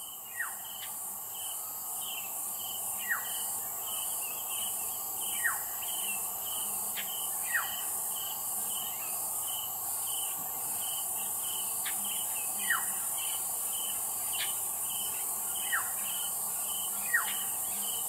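Natural ambience of insects: a steady high-pitched buzz with a rapidly pulsing chirp. Over it, a bird gives a short, sharp falling whistle every two to three seconds.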